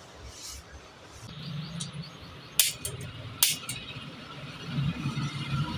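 Two sharp joint cracks a little under a second apart, about halfway through, from spinal joints popping under a chiropractic adjustment. They sound over a faint low rumble.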